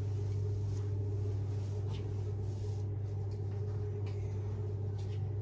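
Steady low hum in a small room, with a few faint rustles.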